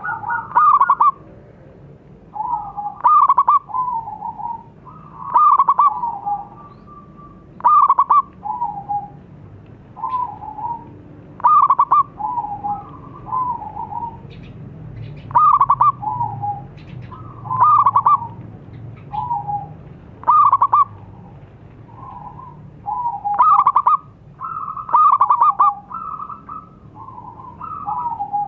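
Zebra dove (perkutut) singing its cooing song. A phrase repeats about every two to three seconds: a quick run of sharp notes, then a few lower, falling coos.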